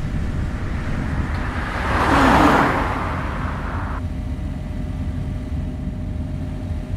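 Steady low rumble, with a noisy whoosh that swells up about two seconds in and fades. The hiss above the rumble cuts off abruptly about four seconds in.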